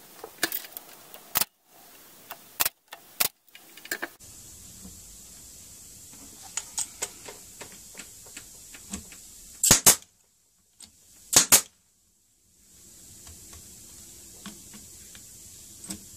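Pneumatic brad nailer firing twice, about a second and a half apart, each shot a sharp double crack as it drives a brad into wooden trim. Around the shots come light clicks and taps of the trim pieces being handled and set in place.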